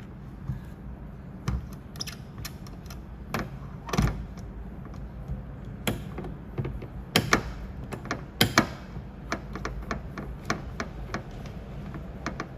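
Irregular clicks and light knocks of paintless dent repair tools working the sheet metal of a car door, a few sharper knocks standing out, over a low steady hum.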